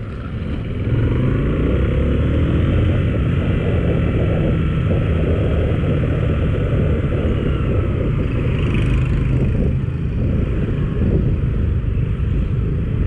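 Motorcycle engine running steadily under way, with road and wind noise; it gets louder about a second in as the bike picks up speed.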